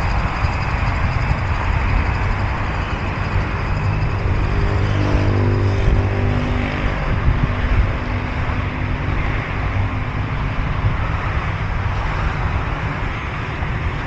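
Road traffic running along a city boulevard, a steady noisy rumble; one vehicle's engine hum stands out in the middle, then fades.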